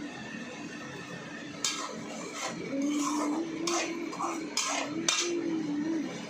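A metal utensil clinking and scraping against a cooking pot, with four sharp clinks spread through. A faint tone wavers in pitch underneath for the second half.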